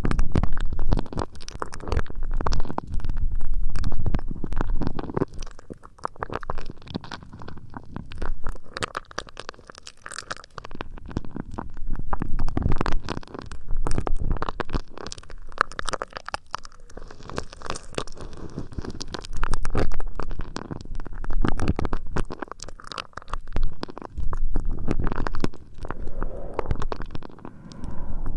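ASMR ear rubbing and ear cleaning right against the microphone: close, muffled rubbing that swells and fades every few seconds, with dense crackly scratching over it.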